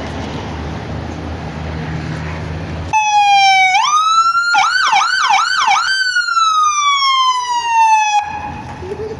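A police car's electronic siren sounds about 3 seconds in, after a steady low background noise. It rises in pitch, switches to a fast up-and-down yelp of about four sweeps, then glides slowly down in a long falling tone and cuts off abruptly about 8 seconds in.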